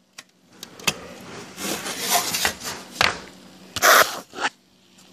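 Plastic housing of an old smoke detector being twisted and pried open by hand: clicks and rough scraping of plastic on plastic, with a loud clack about four seconds in as the cover comes off.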